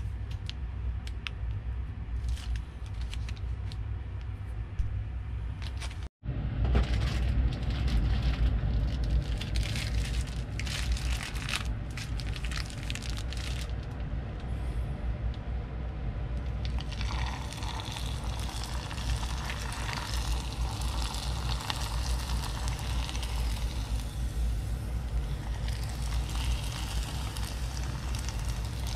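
Churro dough frying in hot oil, sizzling from a little past halfway in, over a steady low rumble. Before that, crinkling and scraping as dough is spooned into a plastic piping bag, broken by a brief dropout.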